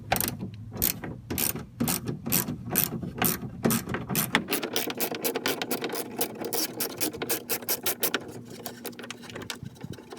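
Ratchet wrench clicking in repeated back-strokes as it turns out a 10 mm bolt. The clicks come about two to three a second at first, then faster and a little quieter about halfway through as the bolt loosens.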